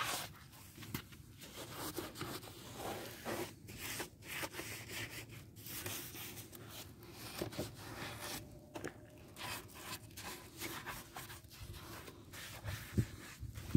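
Wet scrubbing and rubbing on a scooter's soapy plastic body panels during a hand wash, in irregular strokes, with a short dull knock near the end.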